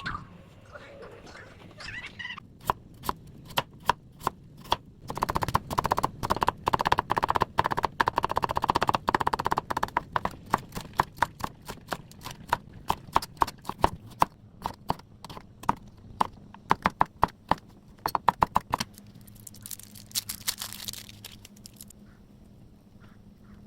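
Rapid, uneven knocking and tapping of kitchen utensils during food preparation, busiest in the middle stretch, then a short hiss near the end.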